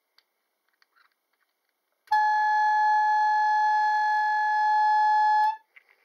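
A few faint clicks, then the Nempnett Thrubwell kitchen timer's pump-driven air horn sounds from about two seconds in: one steady, single-pitched honk for about three and a half seconds that cuts off abruptly. This is the timer's alarm, set off when the clock's minute hand triggers the chime contacts and the circuit switches power to the air pump.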